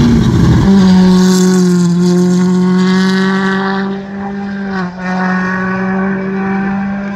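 Rally car engine at full throttle passing close by. Its note drops as it goes past, is loudest about a second in, then holds high and steady, with two short dips about four and five seconds in.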